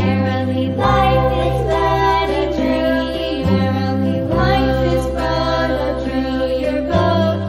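Children's song music: a bright melody with a sung line over sustained bass notes that change every few seconds.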